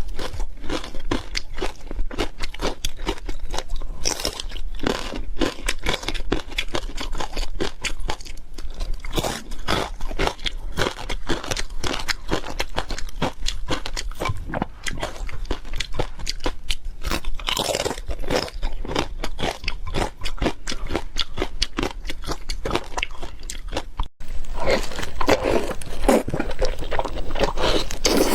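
Close-miked crunching and chewing of crisp food, a dense run of rapid crunches. It breaks off for a moment about 24 seconds in and resumes louder.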